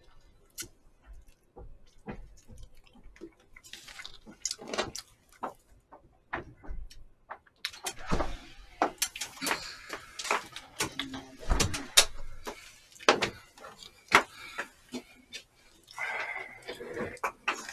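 A string of sharp knocks and clatter, densest in the middle, mixed with a few low, indistinct voices.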